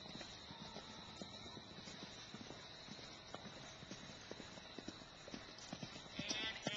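Hoofbeats of ridden horses on a soft dirt arena: faint, irregular dull thuds of hooves striking the ground. A voice starts just before the end.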